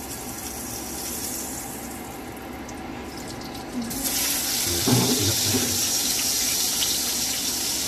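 Olive oil sizzling in a hot frying pan. About four seconds in, a block of butter goes into the oil and the sizzling turns louder and brighter as the butter melts.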